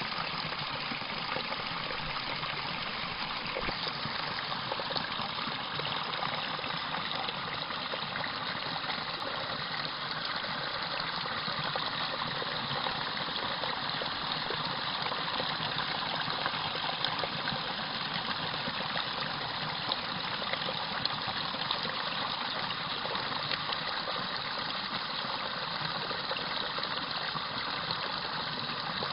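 Water of a small stream rushing steadily over rocks in a little cascade.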